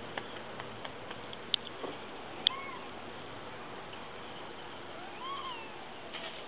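Two short meow-like animal calls, each rising then falling in pitch, the second a little longer and about two and a half seconds after the first. A few sharp ticks come before and with the first call.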